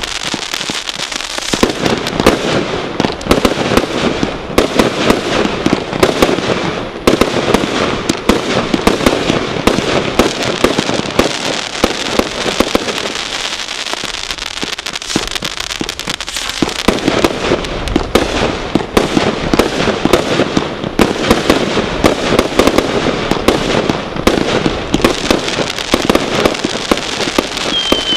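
Brothers Pyrotechnics 'Fireworks Crazy' barrage cake firing a rapid, unbroken stream of shots and small bursts, with a few brief dips in the pace.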